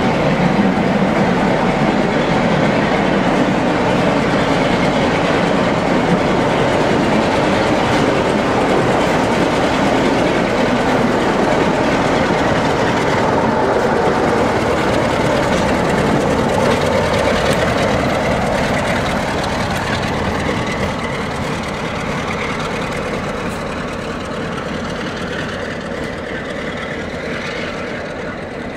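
Class 47 diesel locomotive and its train of coaches passing slowly, wheels running on the rails and the locomotive's Sulzer V12 diesel engine running. The sound fades steadily over the last several seconds as the train draws away.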